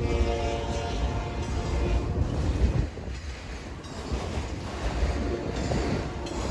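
Freight train passing, with the last of a locomotive horn chord for about the first second and a half, then a steady rumble of the train rolling by, with wind buffeting the microphone.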